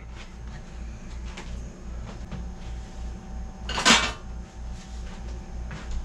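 Kitchen handling noises as a wooden cutting board and knife are cleared off the counter: a few faint clicks, then one louder knock about four seconds in.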